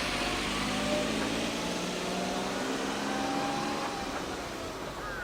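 Diesel railcar engine running, a steady noisy sound with faint pitched tones that shift slightly.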